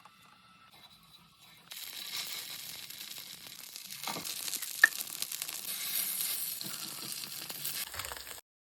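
Semolina snacks frying in hot oil: a dense sizzle full of crackles that starts suddenly about two seconds in, with one sharp pop about five seconds in, and cuts off abruptly near the end.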